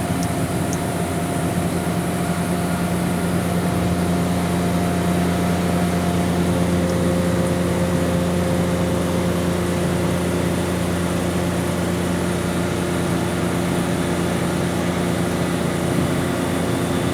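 Steady mechanical hum with several held tones over a broad rushing noise. The tones shift about six seconds in.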